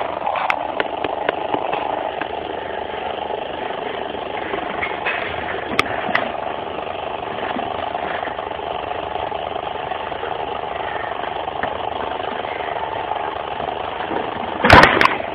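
A steady mechanical drone like an engine running, with a few sharp clicks and a short loud burst near the end.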